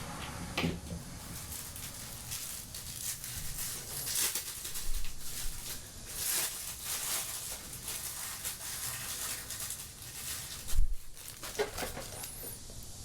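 Hands working a fuel filter's plastic water-separator parts and rubber O-rings: scattered scraping, rustling and light clicks, with one louder knock about eleven seconds in.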